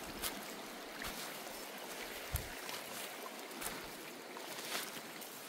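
Footsteps crunching on gravel and stones, about one a second, with one heavier knock about two seconds in, over the steady sound of a shallow creek flowing.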